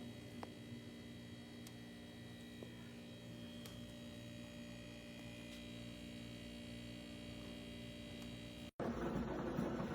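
Steady electrical hum from a Brio top-loading water cooler, a low mains-type buzz with several overtones. Near the end it breaks off abruptly and a louder, rougher noise takes over.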